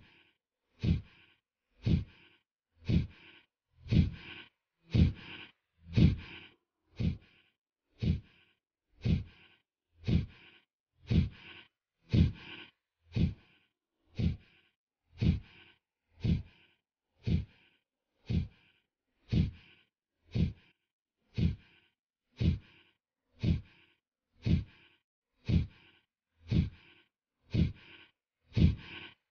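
Kapalbhati pranayama breathing: short, forceful exhalations through the nose in a steady rhythm, about one stroke a second.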